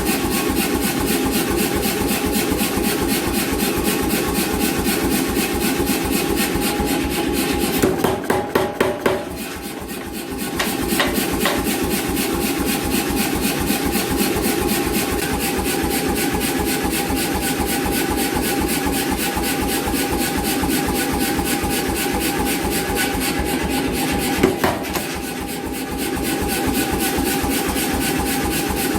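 An 88 lb C41 power hammer running, striking hot steel in a rapid, even stream of blows. About a third of the way in, a few separate heavier blows are followed by a short quieter pause. There is one more brief break near the end before the steady hammering resumes.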